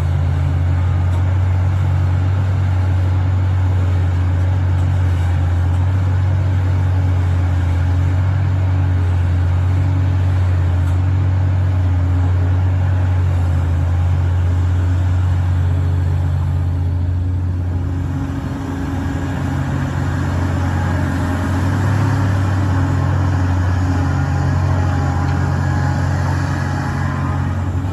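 Excavator's diesel engine running steadily with a heavy low hum, easing briefly about two-thirds of the way through before picking up again.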